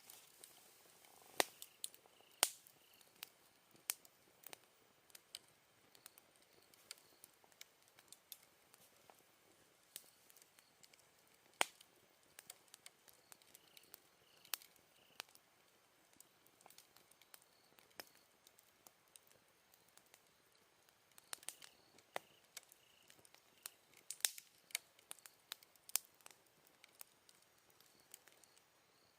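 Wood campfire crackling, with irregular sharp pops from the burning wood, a few of them louder. Faint chirping of autumn night insects goes on underneath.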